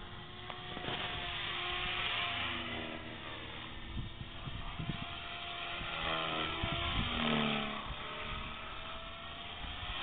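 Electric Align T-Rex 450 3D Pro RC helicopter flying high-speed passes: a steady whine from the motor and rotors whose pitch bends up and down as it swoops past.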